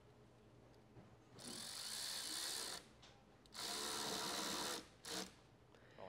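Cordless electric ratchet whirring in two runs of about a second and a half each, then a brief final burst, tightening the screw of a hose clamp on the engine's air intake filter.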